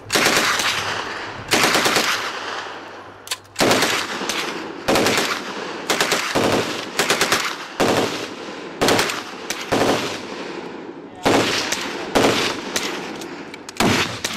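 A 9mm MP40 submachine gun fires about a dozen short full-auto bursts, roughly one every second or so. Each burst is a quick rattle that rings off and dies away before the next.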